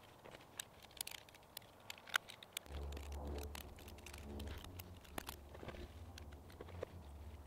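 Scattered small clicks and ticks of a hand tool working the well pump's electrical cable ends. About a third of the way in a low steady hum starts and carries on.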